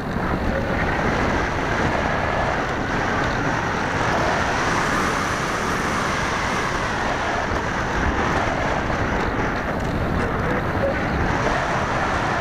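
Wind rushing over a small onboard camera's microphone, mixed with the steady whine of an RC plane's brushless outrunner motor driving a 6x4 pusher propeller in flight.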